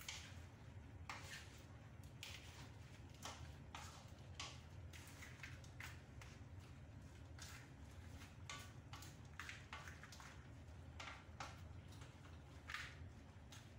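Faint stirring of seafood and vegetables in a boiling coconut-milk stew in a wok-style pan with a wooden spatula: irregular soft scrapes and wet squelches, over a steady low hum.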